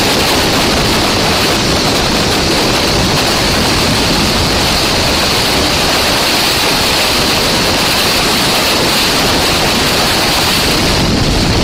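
Loud, steady rush of wind over an onboard camera microphone on a motorcycle ridden at speed, an even hiss with no engine note standing out.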